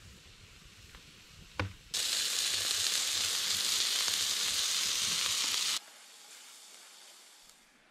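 Campfire crackling quietly with one sharp pop about one and a half seconds in, then meat patties sizzling loudly on a steel hotplate over the fire, the sizzle starting and stopping abruptly.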